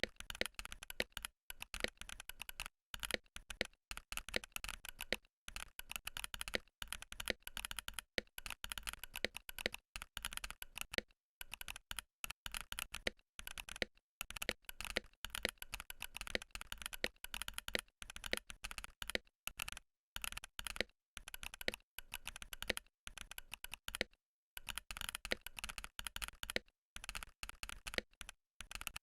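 Fast typing on a Varmilo Minilo VXB67 keyboard with Varmilo EC Sakura v2 switches, aluminium plate and double-shot ABS keycaps: a dense run of key clacks broken by short pauses every second or two. The switches and stabilizers are lubed and the case is foam-dampened.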